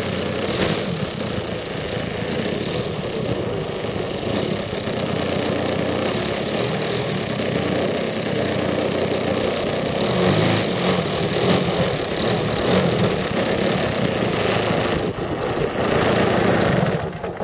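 Engine of a 33% scale Krill Sukhoi Su-29 RC aerobatic model running at low throttle on the ground, growing louder about ten seconds in and dying away at the very end.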